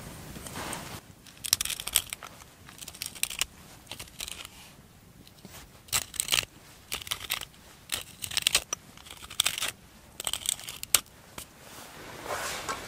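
Dry crinkling and crunching in short, irregular clusters of sharp rustles, with quieter gaps between them.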